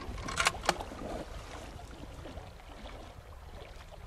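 Two sharp cracks from the hunter's rifle about half a second in, a quarter of a second apart, over a steady low rush of river water and wind.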